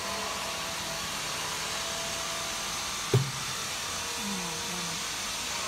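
Steady whooshing machinery noise of a factory workshop, with one short, sharp thump about three seconds in.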